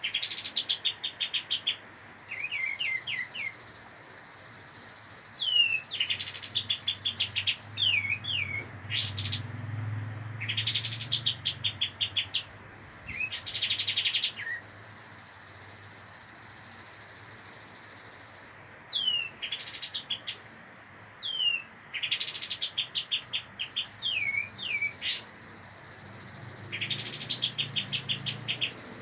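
A young kapas tembak (pied triller) practising its song: short downward-slurred whistles, each followed by a fast rattling trill, in phrases repeated every few seconds.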